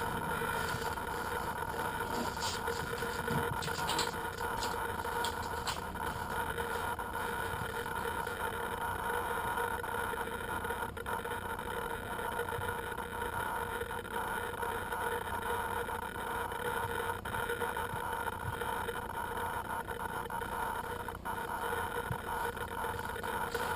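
Electric motors and propellers of an FPV model aircraft running at a steady speed: a constant hum with several fixed tones over a rushing noise.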